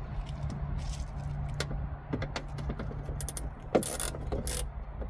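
Hand tools and bolts clicking and clinking, with a sharper metal knock near the middle, as fasteners are worked out of a truck's wheel-well liner, over a steady low hum.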